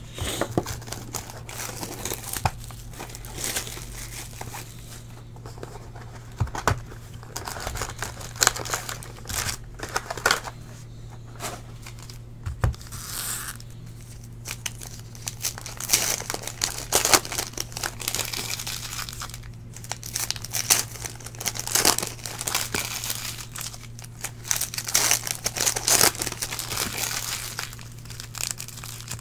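Panini Prizm football card packs being torn open and their wrappers crinkled by hand, in irregular bursts, over a steady low hum.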